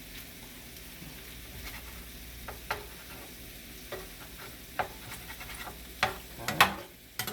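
Chicken thighs sizzling as they fry in a pan, with several sharp clinks and scrapes of a utensil against the pan, the loudest a little before the end.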